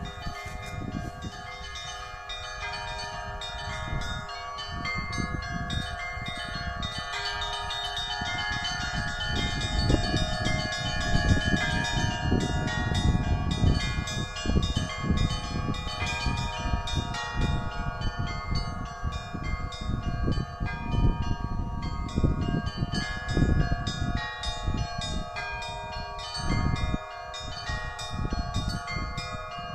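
Russian Orthodox church bells ringing: many bells struck in quick, overlapping strokes, their tones hanging steady as the peal goes on. An uneven low rumble lies underneath and grows louder about ten seconds in.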